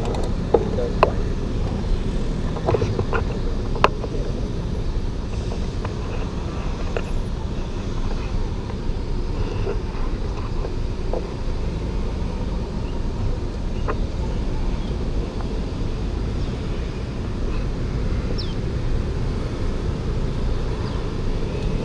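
Road traffic at a city intersection: a steady low rumble of cars passing, with a few sharp clicks in the first few seconds.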